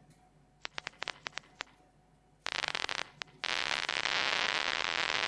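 Nerve impulses from a single head direction cell in a rat's brain, played through loudspeakers as clicks. A few scattered clicks give way to a short dense burst about two and a half seconds in, then a fast continuous crackle from about three and a half seconds on. The cell is firing hard while the rat faces its preferred direction.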